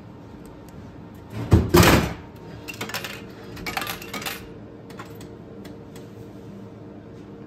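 A drink can dropping through a refrigerated vending machine and landing in the dispensing bin with a loud metallic clatter about a second and a half in, followed by quieter rattles and a few clicks over a low steady hum.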